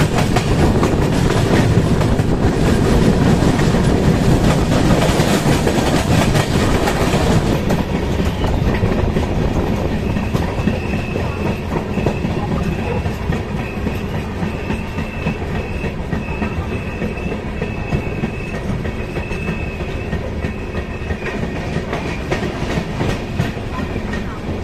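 Express train coach running on the rails, heard at an open door: loud clattering and rushing noise for the first seven seconds or so, then growing gradually quieter as the train slows into a station platform. From about ten seconds in, a high squeal comes and goes from the running gear as it brakes.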